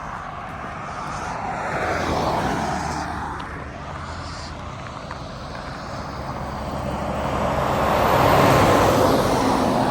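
Road traffic: vehicles pass close by, the rushing noise swelling and fading twice, the second pass, about eight seconds in, the louder.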